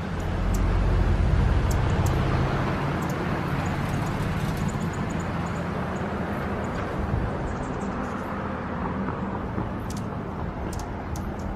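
Steady low outdoor rumble with a hiss, swelling in the first two seconds, with faint sharp high ticks scattered through it.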